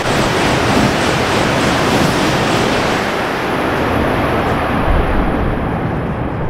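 Coupled E5 and E6 series Shinkansen passing through the station at high speed: a loud rushing roar of air and wheels that fades over the last few seconds as the tail goes by.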